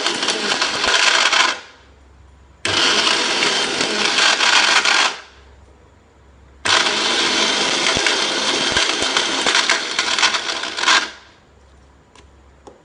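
Kitchen mixer grinder (mixie) grinding whole spices, including cloves, bay leaves and a hard piece of licorice root, with the hard bits rattling in the jar. It is run in three pulses, each a few seconds long, cutting off between them and stopping about eleven seconds in. The slow pulsing is for the hard licorice root.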